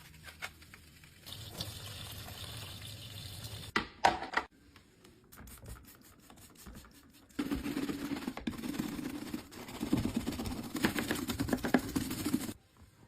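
Cleaning a washing machine: a few sharp clicks and knocks about four seconds in, then about five seconds of rapid scrubbing that starts and stops abruptly.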